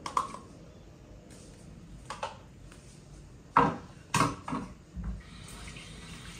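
Kitchen clatter: a few sharp knocks and clinks of dishes and utensils, with three in quick succession past the middle, over a quiet room background.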